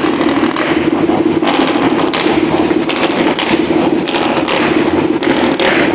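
Truck engine running under way, heard from inside the cab: a steady drone over road noise, with irregular knocks and rattles throughout.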